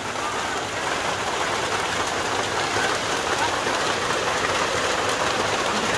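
Steady rain falling on a grass field.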